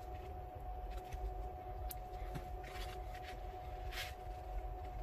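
Steady hum with a low background rumble, and a few faint scrapes and taps as glue is squeezed from a tube onto a paper plate and stirred with a toothpick.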